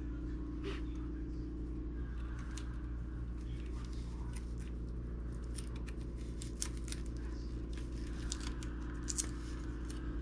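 Small clicks, ticks and crinkles of hands handling computer parts and their plastic packaging, over a steady low electrical hum. The clicks come thicker in the second half.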